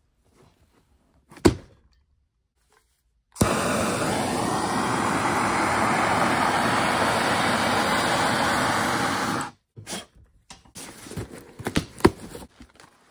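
A shipping box lands on the bench with one thunk. Then a handheld gas torch burns with a steady loud hiss for about six seconds as it is run along packing tape, and the hiss cuts off suddenly. After that come crackles and clicks as the tape and cardboard flaps are torn open by hand.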